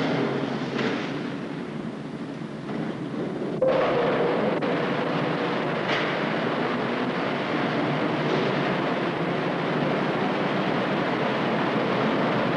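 Steel mill plant noise: a steady machinery din that steps up louder about three and a half seconds in, with a brief metallic squeal at that moment.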